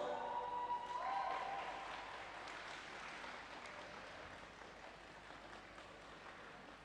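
Audience applause, fading away, as the last held notes of the figure-skating program music die out in the first second or so.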